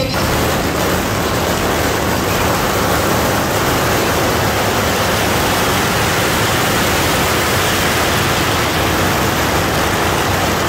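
A string of firecrackers going off in a dense, continuous crackle without a break.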